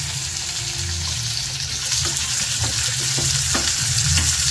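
Chopped shallots, onion and curry leaves frying with a steady sizzle in sesame oil in a non-stick kadai. From about two seconds in, a wooden spatula scrapes and taps against the pan in short, quick strokes as the onions are stirred.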